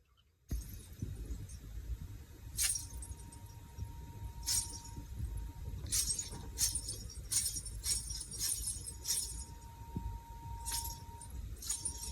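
About a dozen light, sharp clinks of small hard objects, spaced irregularly and bunched in the middle, over a low rumble and a faint steady tone.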